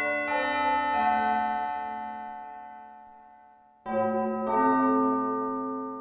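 Arturia MicroFreak synthesizer playing sustained chords through a Behringer DR600 digital reverb pedal. The notes change twice near the start and then fade slowly in a long reverb tail until a new chord is struck about four seconds in.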